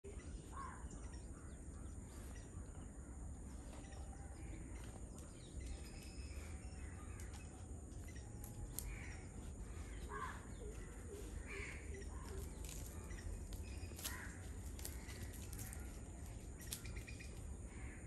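Scattered short chirps and calls from several birds, faint over a steady low background noise.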